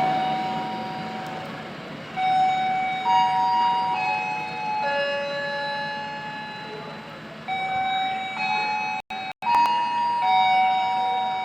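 A slow melody of held electronic chime tones stepping from note to note, over the fading rumble of a departing train. The sound drops out twice, briefly, about nine seconds in.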